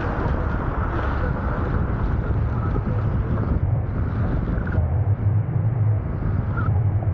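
Wind buffeting the camera microphone over a steady low rumble and hiss of electric unicycle tyres rolling on wet asphalt.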